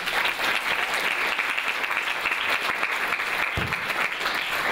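Audience applauding, a steady run of many hands clapping.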